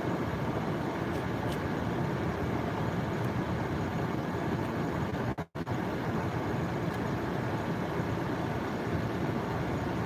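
Steady rushing background noise with no clear source. It drops out completely for a split second about halfway through.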